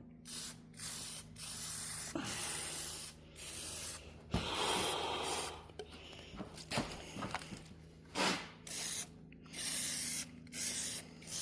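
Aerosol spray-paint can hissing in a series of bursts, some short and some over a second long, with brief pauses between them as green paint is sprayed on.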